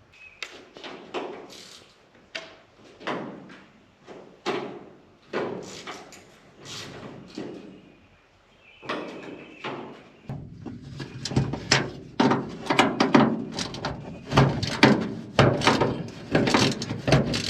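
Ratchet wrench clicking and clanking in repeated strokes as bolts on the combine's side shield are worked loose. The strokes are spaced out at first, pause briefly, then come faster and heavier in the second half.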